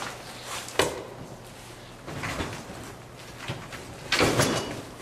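Large cardboard box being pulled open and handled: scraping and rustling cardboard with a sharp knock just under a second in, and the loudest rough scrape about four seconds in.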